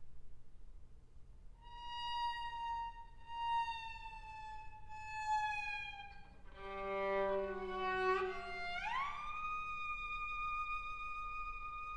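Solo violin playing a long high note that sinks slowly in pitch. Partway through it turns to several notes sounding at once, then slides up to a higher note that is held.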